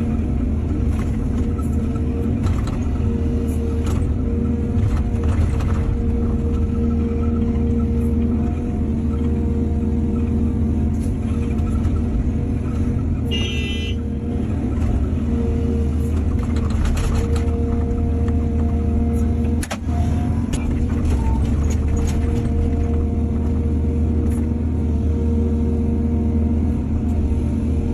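Excavator's diesel engine running steadily, with scattered knocks and scrapes and a short high-pitched metallic squeal about halfway through.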